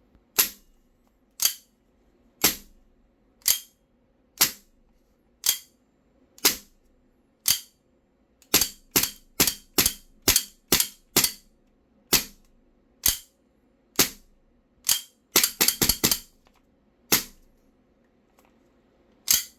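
Gas blowback airsoft pistol, a VFC SIG Air M17 with a steel slide, firing: single shots about a second apart, then a quicker string of shots, then a burst of four in rapid succession, each a sharp crack of the slide cycling. A faint steady hum sits underneath.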